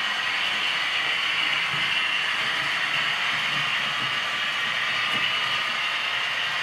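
Model V200 diesel locomotive running on a model railway layout, giving a steady mechanical running and engine sound.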